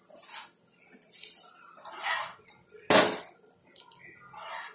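A spatula scraping and knocking against a dosa tawa as an adai dosa is turned over, with one sharp clank about three seconds in.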